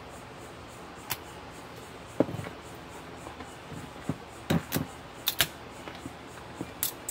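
Scattered sharp clicks and snaps of plastic connector housings being broken off a circuit-board backplane with pliers to bare its gold-plated pins.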